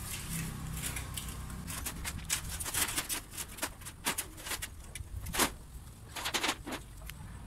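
A cat crunching dry kibble from a plate: an irregular run of sharp crunches, loudest in the middle and later part, over a low steady hum.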